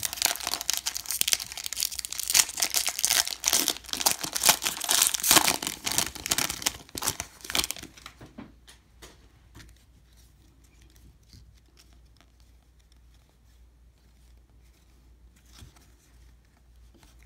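Foil wrapper of a baseball-card hobby pack crinkling and tearing as it is pulled open by hand for about eight seconds. After that there are only faint rustles from the card stack being handled.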